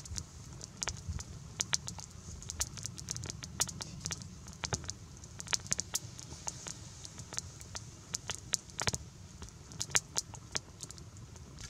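Wood campfire of sticks and twigs crackling, with irregular sharp pops and snaps, several a second, over a steady low rumble.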